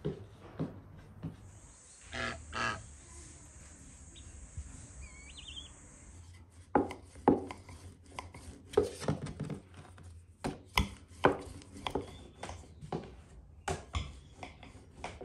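Wooden rolling pin rolling out dough on a wooden board: from about six and a half seconds in, a string of irregular knocks and rubbing strokes, wood on wood, one or two a second.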